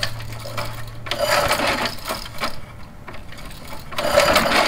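Two pulls on the recoil starter of a Briggs & Stratton go-kart engine, each a second-long whirring rattle of the cord and the engine turning over. The engine does not catch, on its first start attempt after its dry tank was filled with gas.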